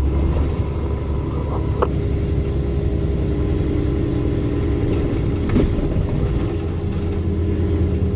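Dump truck's diesel engine running steadily under way, heard from inside the cab as a low drone with road noise, with a couple of faint clicks.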